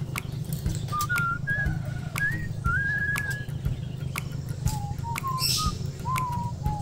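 A tune whistled in single clear notes, each held briefly and stepping up and down in pitch, with sharp clicks now and then from plastic clothes hangers on a metal drying rack.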